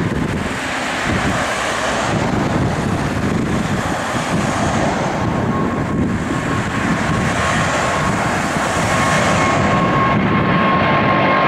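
Alitalia Boeing 777 twin-jet taking off and climbing out, its engines at takeoff thrust producing a loud, steady roar. About halfway through, a steady whine joins in, and the noise grows louder near the end as the jet climbs closer.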